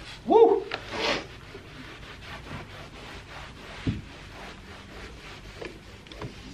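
A man clears his throat and coughs in the first second or so, his throat caught by the strong leather cleaner's fumes. A microfibre towel then rubs faintly and steadily on a leather door panel.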